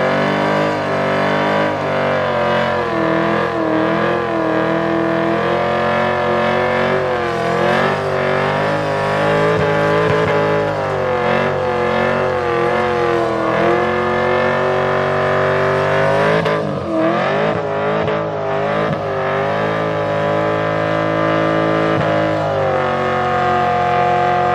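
Car engine held at high revs through a burnout, its rear tyres spinning and smoking on the pavement. The revs waver continuously, sag briefly about two-thirds of the way through and climb back.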